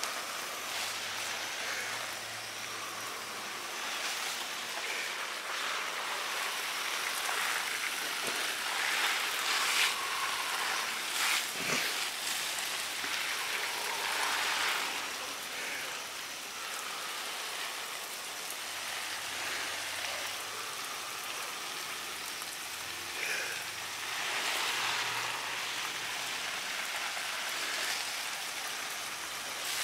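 Water spraying onto sugarcane mulch and plants as a vegetable bed is watered: a continuous rain-like hiss that swells and fades in loudness.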